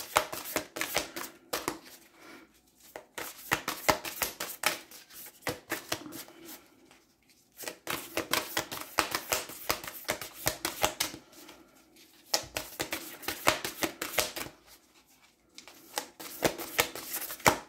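A deck of cards being shuffled by hand: runs of rapid flicking clicks a few seconds long, with brief pauses between them.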